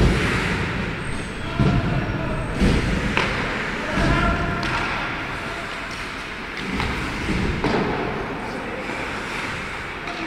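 Ice hockey play in a large, echoing rink: sharp knocks and thuds of sticks, puck and players against the ice and boards, several in the first few seconds and a few later, with players calling out.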